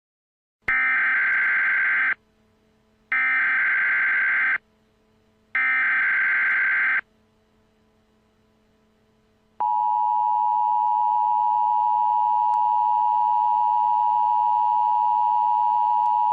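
Emergency Alert System tones: three data bursts of the SAME header, each about a second and a half long and about a second apart, which encode the coming alert. After a longer pause, the steady two-tone EAS attention signal begins about two-thirds of the way in, the signal that a voice alert message is about to follow.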